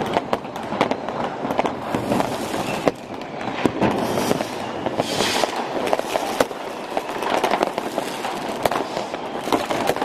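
Dense, nonstop barrage of New Year's Eve consumer fireworks: rockets and firecrackers going off in many overlapping bangs and crackles, with a short hiss about halfway through.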